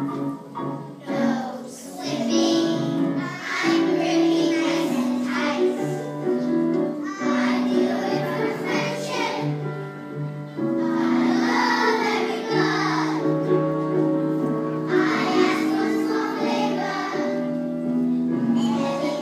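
A group of children singing a song from a stage musical, in unison phrases over an instrumental accompaniment of held notes.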